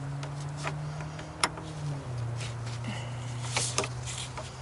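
A wrench working a battery terminal bolt, giving a few sharp metallic clicks over a steady low hum that drops slightly in pitch about two seconds in.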